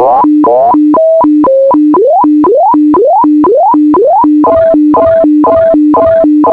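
Electronic data tones of an HF radio fax signal: a steady low tone alternating about twice a second with short higher tones. The higher tones change pattern partway through, stepping at first, then rising sweeps in the middle, then a steady higher beep toward the end.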